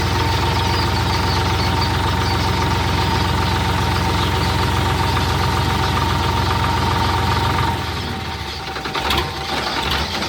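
Tractor diesel engine running steadily with a constant whine on top. About eight seconds in, the sound drops a little and turns uneven, with a few knocks.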